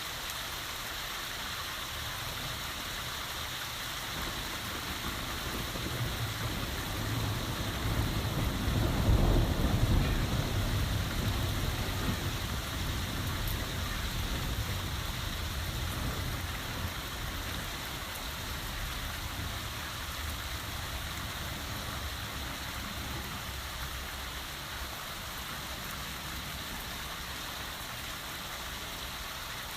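Heavy rain falling steadily during a thunderstorm. A long, deep roll of thunder builds from about five seconds in, is loudest around ten seconds, and dies away over the following several seconds.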